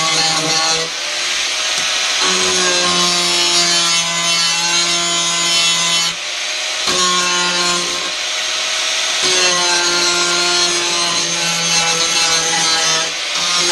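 Angle grinder running on sheet steel: a steady high whine over a gritty grinding hiss, its pitch sagging and picking up again several times as the disc is pressed into the metal and eased off.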